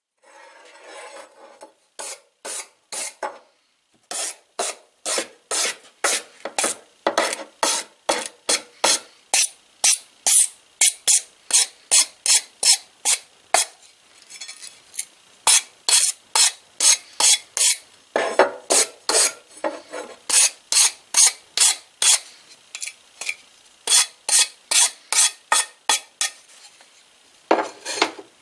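Hand file rasping back and forth across a steel crankshaft journal in steady strokes, about two a second, with a few short pauses.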